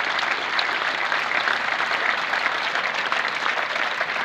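Stadium crowd applauding steadily, a dense patter of many hands clapping.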